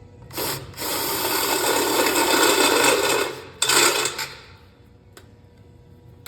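Power drill boring a pilot hole through the wall of a hollow aluminum post: a short blip, then a steady run of about two and a half seconds, then one more short burst.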